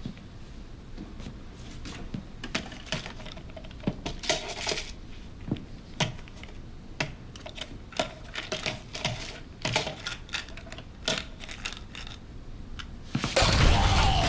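Plastic pill bottles clicking and rattling against each other and the shelf as they are handled, a run of small, irregular clicks. Near the end a sudden, much louder burst of noise cuts in.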